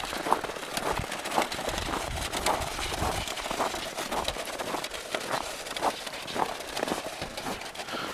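Footsteps crunching on packed snow at a walking pace, about two steps a second.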